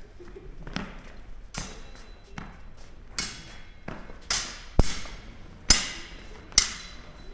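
Saber fencing bout: a string of sharp knocks and thuds from footwork on the mat and saber blades striking, about one a second. They are faint at first and much louder from about four seconds in, as the fencers close.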